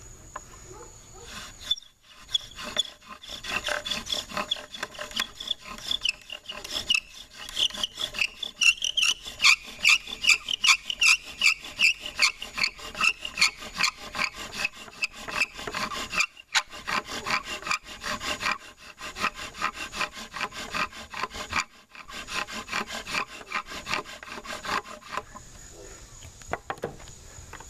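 Bow drill at work: a wooden spindle spun back and forth by a bow, grinding and squeaking in the notch of a wooden hearth board in fast rhythmic strokes, with short breaks a couple of times. It is the friction that heats the board until it smokes, building toward an ember, and it stops near the end.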